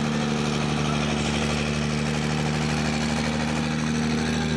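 Diesel pickup engine running loud and steady at a constant pitch, with no rise or fall in revs.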